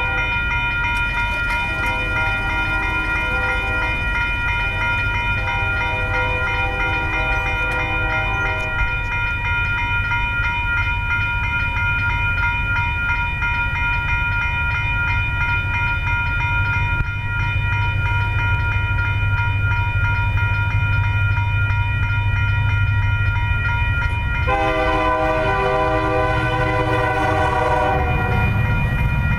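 Diesel locomotive air horn on UP 4979, an EMD SD70M, sounding a long, nearly continuous chord as the grain train approaches. Its lower notes cut in and out several times in the first nine seconds and come back strongly near the end, over the rising rumble of the locomotives' diesel engines.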